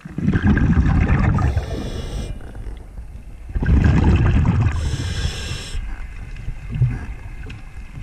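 A diver's breathing heard underwater: twice, a rumble of bubbles and then a hiss, in a slow even rhythm.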